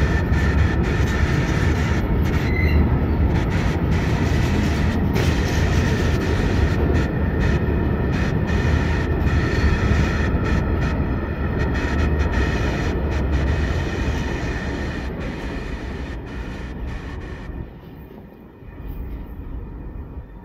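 A long train of freight gondola wagons rolling past on the rails, a loud steady rumble with a faint high whine above it. The last wagon goes by about three-quarters of the way through, and the rumble fades as the train moves away.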